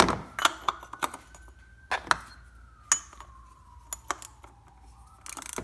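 A wrench clicking and knocking against the oil filter housing cap as it is worked loose, a series of sharp, irregular clinks, with a short rush of noise near the end. A faint siren wails slowly up and down in the background.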